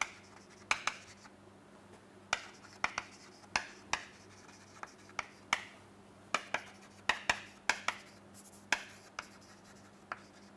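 Chalk writing on a chalkboard: a run of irregular sharp taps and short scratchy strokes as words are written.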